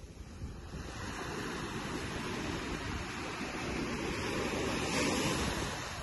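Small waves breaking and washing up a sandy beach, with wind on the microphone. The wash swells to its loudest about five seconds in, then eases.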